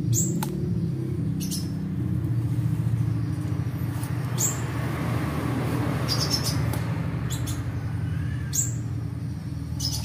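Caged oriental magpie-robin giving short, sharp, high rasping calls every second or two, the 'cekrek-cekrek' the owner treats as a sign of its long-running cough and throat mucus. A steady low hum runs underneath, and a broad rushing sound swells and fades in the middle.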